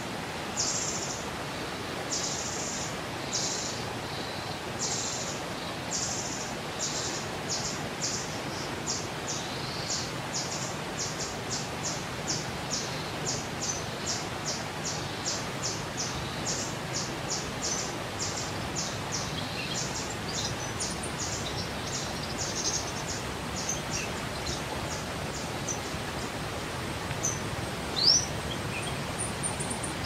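A high-pitched call repeated over and over, slow at first and then speeding up to about three a second before thinning out, over a steady hiss of background noise. Near the end a single short rising chirp stands out loudest.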